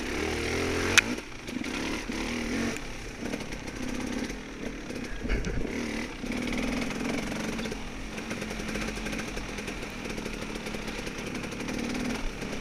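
Dirt bike engine running and revving up and down as the throttle is worked, with a sharp knock about a second in.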